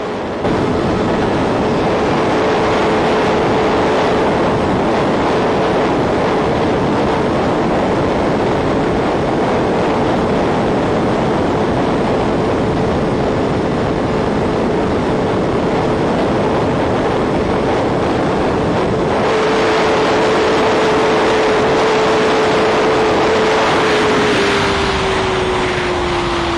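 Sportbike engine held at high, steady revs under heavy wind noise at very high speed. Near the end the engine note falls gradually.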